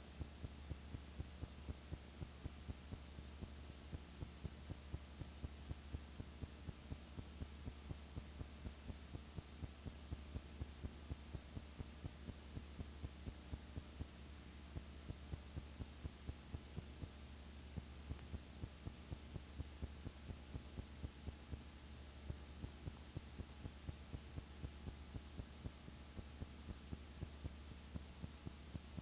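A steady low electrical hum with faint, evenly spaced ticks about three a second, unchanging throughout; no sound belonging to the pictured scenes.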